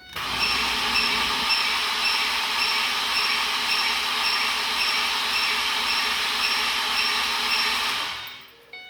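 Starter motor cranking a four-cylinder petrol engine with ignition and injectors disabled, so it turns over for about eight seconds with a rhythmic pulse and never fires, then stops. The engine is being cranked for a relative compression test. The mechanic reads the uneven starter current as two cylinders sealing poorly.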